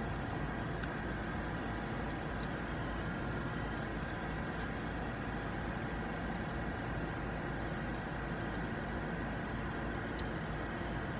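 Steady hum and hiss inside a car, its engine idling and the air conditioning blowing, with a few faint clicks.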